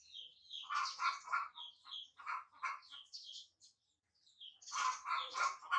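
Baby macaque giving short, squeaky, chirping cries in quick runs: three bursts, with a brief silence a little after the middle.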